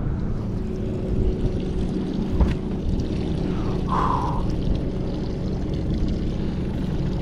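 A boat's motor running steadily, a low rumble with a faint hum. There is a short higher-pitched sound about four seconds in.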